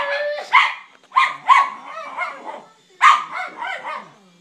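Dog barking excitedly at a helicopter: a string of sharp barks, roughly one every half second, with short gaps.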